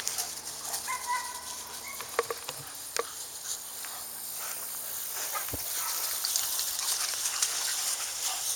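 Dogs moving about on open ground: light pattering and rustling with scattered clicks, and a short steady high whine about a second in.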